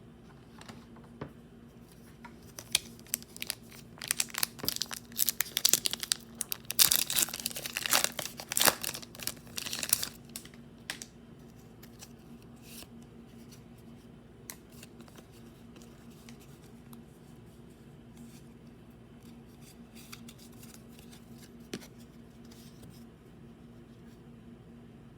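Pokémon booster pack's foil wrapper being torn open and crinkled, a dense crackling that runs from about two seconds in to about eleven seconds, loudest near the middle, then only a few small rustles and clicks. A steady low hum sits under it throughout.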